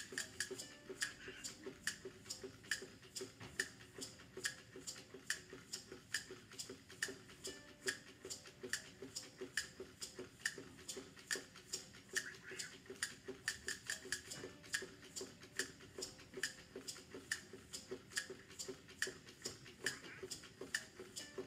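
Quiet, steady ticking, about three ticks a second, over a faint steady hum.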